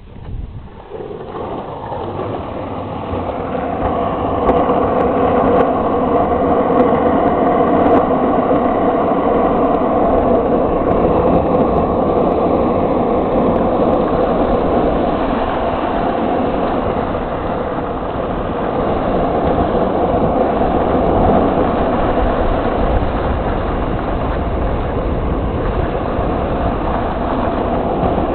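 Steady rumbling road noise with wind on the microphone from travelling fast downhill on asphalt behind a longboarder, growing louder over the first few seconds and then holding steady.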